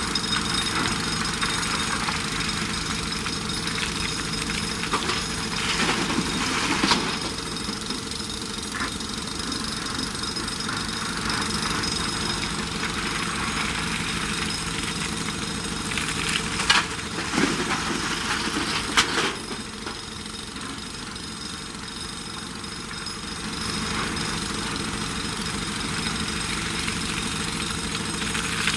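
JCB 3DX Super backhoe loader's diesel engine running under load as the backhoe digs, with the bucket scraping and clanking on broken stone. Several sharp clanks stand out, about a quarter of the way in and again a little past the middle.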